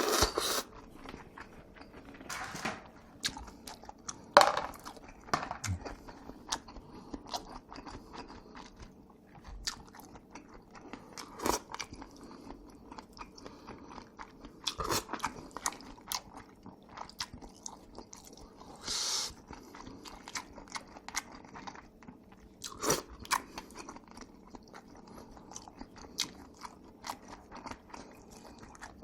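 Close-miked eating of jjajangmyeon and jjampong noodles: wet chewing with many small clicks and smacks, broken by a few louder sharp sounds, the longest a brief hissing burst about two-thirds through.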